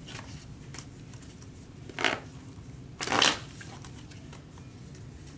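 A tarot deck being shuffled by hand: two short bursts of cards sliding against each other, about a second apart, the second one longer.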